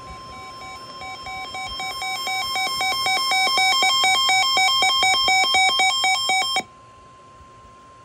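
NOAA weather alert radio going off for a severe thunderstorm warning. The steady broadcast warning alarm tone runs throughout, and the receiver's rapid pulsed beeping alarm grows steadily louder over it. The beeping cuts off suddenly about six and a half seconds in, and the steady tone carries on more quietly.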